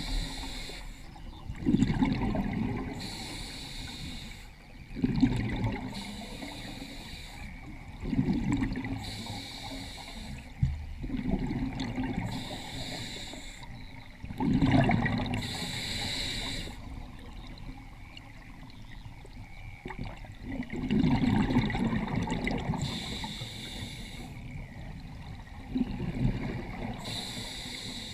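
Scuba diver breathing through a regulator underwater: a short hiss on each inhale, then a burst of bubbling exhaust on each exhale, repeating about every three to four seconds, with a longer pause a little past halfway.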